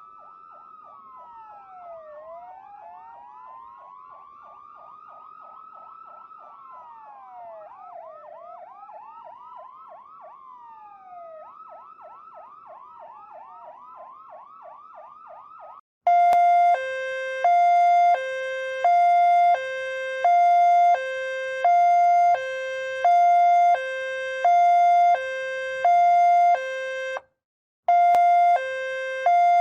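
Ambulance sirens sweeping up and down, slow wails overlapping fast yelps. About halfway through, the sound cuts suddenly to a much louder two-tone hi-lo siren that alternates between two pitches, a bit over half a second each. It breaks off briefly near the end, then starts again.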